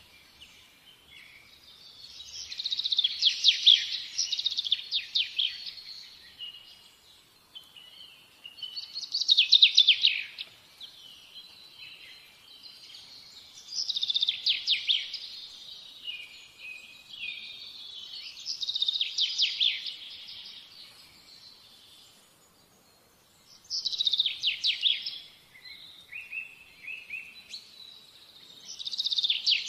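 A songbird singing: high, rapidly trilled phrases of a second or two each, repeated about every five seconds with short pauses between.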